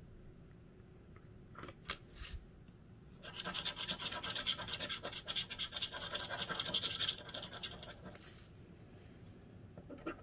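A scratch-off lottery ticket being scratched with a hand-held scratcher. There are a few short scrapes about two seconds in, then rapid, continuous scraping from about three seconds to about eight seconds in, and more strokes start near the end.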